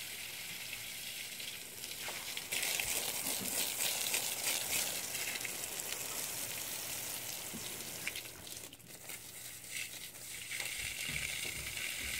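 Stream of water from a garden hose splashing onto wet soil, a steady hissing patter. It gets louder a few seconds in, fades briefly later on, then picks up again.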